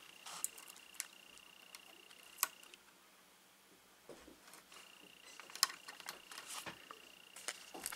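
Faint scattered clicks and taps of fingers pressing a sticker onto a die-cast metal and plastic toy robot figure, a few sharper ticks near the end.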